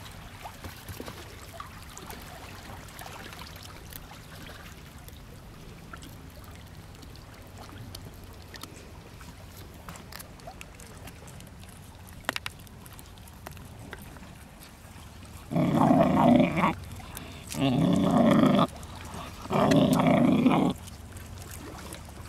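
Pit bull puppy belching loudly three times in a row near the end, each belch about a second long and about two seconds apart. Before them there are only faint scattered ticks over a low steady background.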